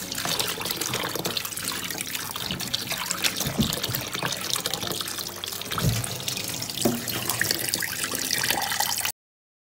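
Kitchen tap running into a stainless steel bowl while hands swish and rub lettuce leaves and a cucumber in the water, with a few sharper splashes. The sound stops abruptly near the end.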